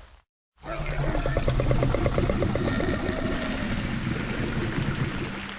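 Dinosaur growl sound effect: a long, low, rattling growl that starts about half a second in and lasts about five seconds, with a fast even rattle through its middle and a fade at the end.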